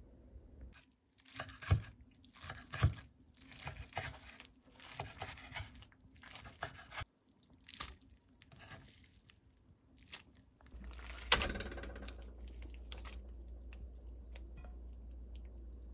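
Soaked, rehydrated miyeok seaweed being cut in a stainless steel bowl: a run of crunchy, wet cutting sounds, with two sharper knocks about two seconds in. Near the end a single sharp knock is followed by a steady low hum.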